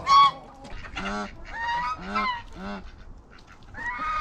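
Chickens squawking and calling. A loud squawk comes right at the start, then a string of short calls that rise and fall in pitch, and more calls near the end.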